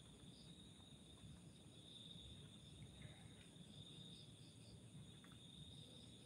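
Faint crickets trilling in a steady, continuous high-pitched chorus.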